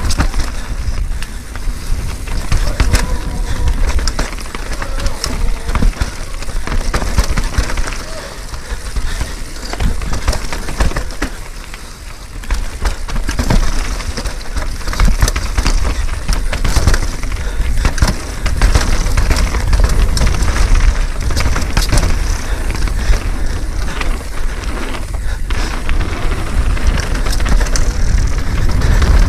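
Mountain bike descending a rough technical trail: tyres crunching over dirt and rock, with constant rattles and knocks from the bike. Heavy wind buffets the microphone with a low rumble.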